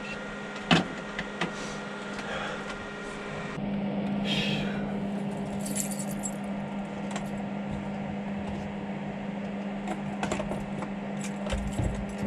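Small clicks and clinks of objects being handled at a counter, over a steady hum that gets louder about three and a half seconds in.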